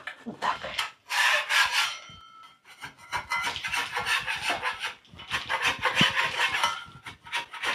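Steel putty knife scraping old decorative putty off a painted wall: a rasping scrape in three bouts with short breaks between them.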